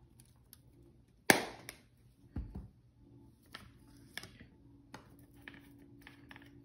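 Kitchen handling sounds while barbecue rub is put on the ribs: one sharp snap a little over a second in, a dull knock about a second later, then scattered light taps and clicks, over a faint steady hum.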